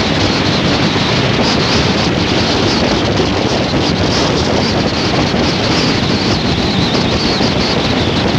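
Steady rush of wind on the microphone of a camera carried on a moving ride, with road and vehicle noise mixed in underneath.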